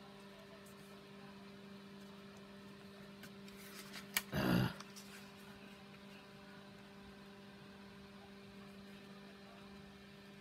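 Faint steady electrical hum. About four seconds in there is a click, then a short half-second handling noise as the cardstock pieces are shifted on the cutting mat.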